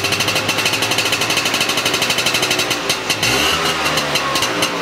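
A 1976 Piaggio Ape 400R's 175 cc engine running with an even, rapid beat, then revving up about three seconds in.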